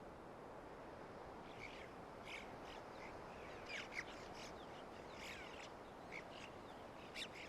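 Faint, scattered short bird calls, some sliding down in pitch, over a quiet background hiss of open mountain air.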